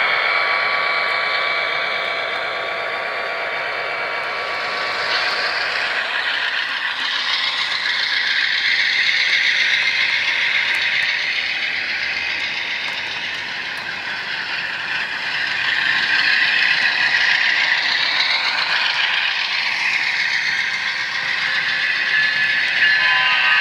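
HO scale model trains running on the layout track: a continuous rattling and clicking of the small wheels and mechanisms, swelling as trains pass close. A few held tones sound in the first few seconds.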